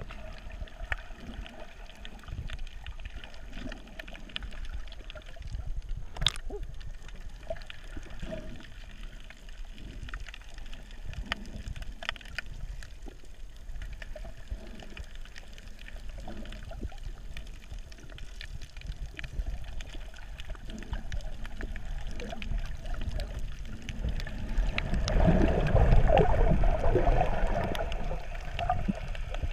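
Underwater ambience heard by a camera below the surface: muffled water noise with scattered small clicks and crackles and one sharp click about six seconds in. Near the end it grows louder and churns as swimmers move close to the surface.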